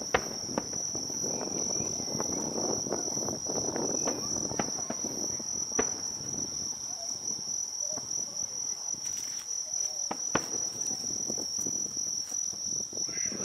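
Crickets chirring steadily on one high note, over a low murmur of voices and a few scattered sharp clicks.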